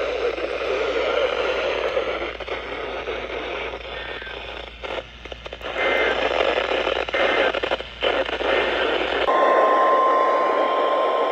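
Weather radio receiver giving off noisy, crackling static with brief dropouts. About nine seconds in, the NOAA Weather Radio 1050 Hz warning alarm tone starts, a single steady high tone that announces an alert broadcast.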